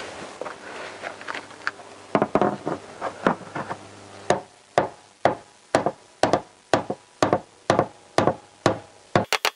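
Hammer blows on the inside of a Vauxhall Insignia's rear wheel arch, knocking out a dent in the metal panel. The blows are uneven at first, then settle into an even beat of about two a second, with a quick flurry of blows near the end.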